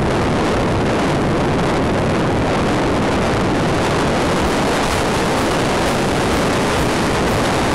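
In-flight noise from an onboard camera riding on an RC Wot 4 model aircraft: a loud, steady rush of wind and airflow over the microphone, blended with the plane's motor running.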